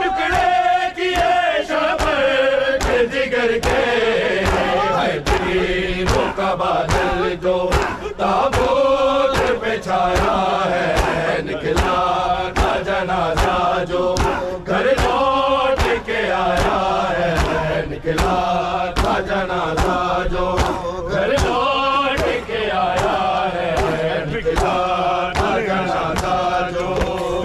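A crowd of men chanting an Urdu noha lament together, with evenly spaced sharp slaps of matam chest-beating, about one and a half a second, keeping the beat.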